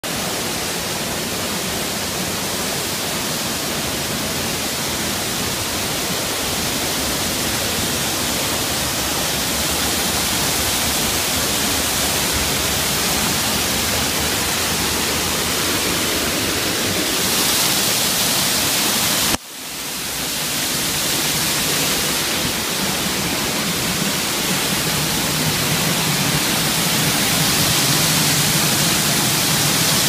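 Waterfall: a loud, steady rush of falling water. It briefly cuts out about two-thirds of the way through, swells back over a second or so, and grows somewhat louder near the end.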